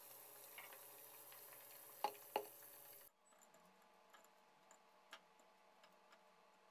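Pork belly pieces deep-frying in hot oil, a faint steady sizzle, with two sharp clicks of the metal wire strainer about two seconds in. The sizzle cuts off suddenly about three seconds in, leaving near silence with a few faint light ticks.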